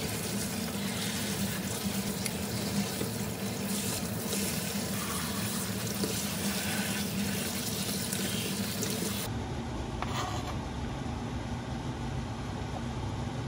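Tap water running full onto cherry tomatoes and basil leaves in a mesh strainer over a stainless steel sink as they are rinsed. The water sound cuts off abruptly about nine seconds in, leaving a steady low hum and a single light knock shortly after.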